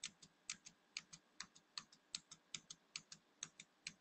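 Tab key on a computer keyboard pressed over and over at a steady pace, about two presses a second, each press a quick double click of the key going down and coming back up. The presses are stepping the cursor through a web page's links and fields toward the username box.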